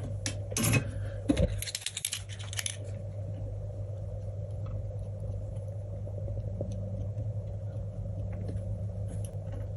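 A quick run of small clicks and light metallic clinks as tools and wires are handled on a workbench over the first three seconds. After that there is a steady low hum with occasional faint ticks.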